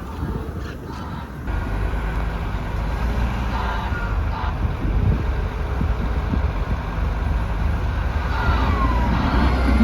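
A motor vehicle's engine running, with a steady low hum that gets louder about a second and a half in, and a short falling squeal near the end.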